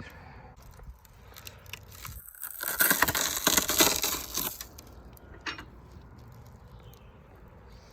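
Crackling, tearing noise that swells for about two seconds midway, then drops back to a low background: old window adhesive or seal being pulled off the car body around the quarter-window opening.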